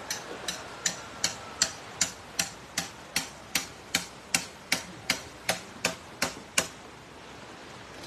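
Hammer driving nails into timber: a steady run of about eighteen sharp blows, nearly three a second, stopping shortly before the end.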